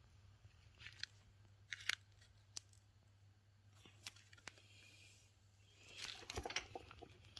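Faint, scattered clicks and light handling rustle over a low steady hum, with a denser run of clicks and rustling near the end.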